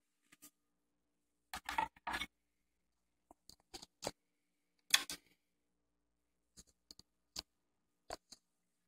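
Scattered light clicks, taps and scrapes as a vinyl record is laid on a Kenwood KD-500 turntable's platter and the turntable is started, the loudest knock about five seconds in. A faint steady hum runs underneath.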